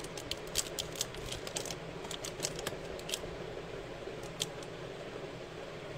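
Light clicks and clinks of Afghan antique-style metal cuff bracelets being handled and shifted on a display shelf: a quick scatter of ticks in the first three seconds and a couple more about four and a half seconds in, over a steady low room hum.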